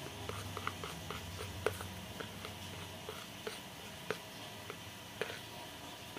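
Hands kneading and pressing sticky glutinous-rice-flour slime in a plastic plate, giving irregular small sticky clicks and pops, a few louder than the rest.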